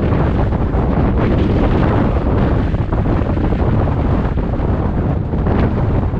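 Strong wind buffeting the microphone, a steady loud rumble and rush.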